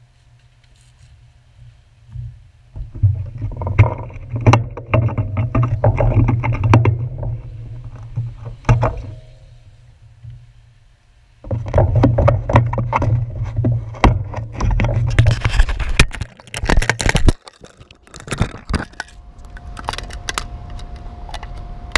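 Handling noise on a handlebar-mounted GoPro as the bicycle is worked on: rustling, scraping and rattling with many sharp clicks and knocks, in two long spells with a pause between. Near the end a hand grips the camera itself.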